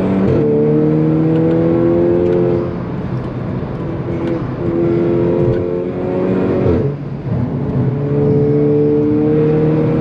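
Volkswagen Golf 6 GTI's turbocharged four-cylinder engine pulling hard under acceleration, its note climbing steadily and dropping sharply three times as the DSG gearbox shifts up in manual mode.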